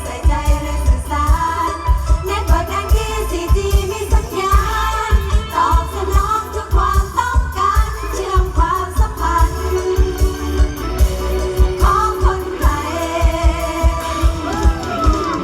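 Live Thai Isan luk thung / mor lam band music: a singer's melody with sliding, ornamented notes over a steady heavy drum beat and bass.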